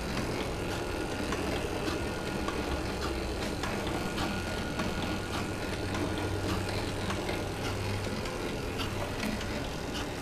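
JM-815 automatic cold strip cutter running as it feeds and chops black webbing: a steady motor hum with scattered clicks and rattling from its feed and cutting mechanism.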